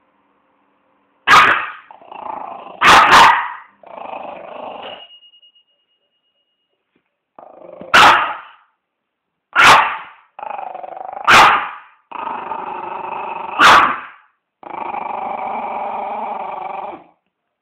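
A dog barking in sharp, loud single barks, about seven in all, with long drawn-out growls between them.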